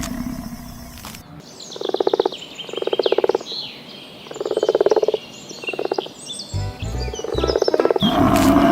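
A cow's low moo fades out. Then come four short calls, each about half a second long and made of rapid clicking pulses, with faint high bird chirps above them. Near the end a cow starts to moo again.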